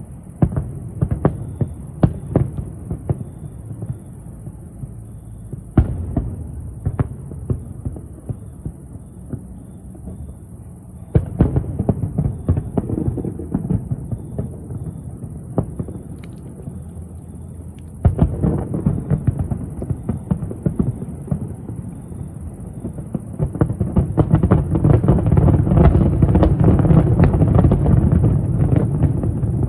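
Fireworks display: a string of sharp bangs and low booms over a steady rumble, thickening into a dense, continuous barrage of bangs and crackle for the last several seconds.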